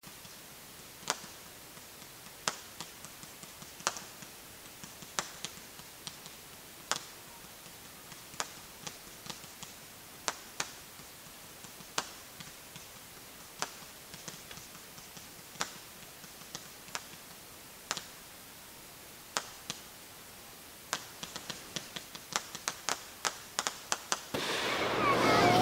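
Fireworks going off: sharp pops about every one to two seconds, quickening to several a second near the end, then a louder burst of dense crackling in the last second or so.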